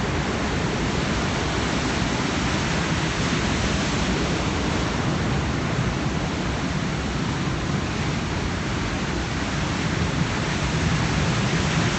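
Large ocean waves breaking, a steady rushing surf noise with no single crash standing out.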